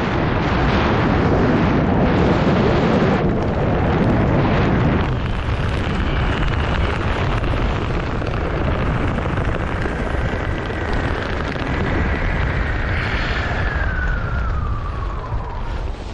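Wind rushing over a camera microphone during a descent under a parachute canopy, heavily buffeting for about the first five seconds, then lighter. A faint thin whistle holds steady through the middle and slides down in pitch near the end.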